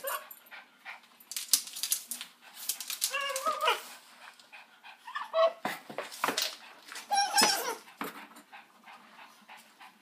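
Dog whining and yelping in three short bouts, among scattered sharp clicks and rattles.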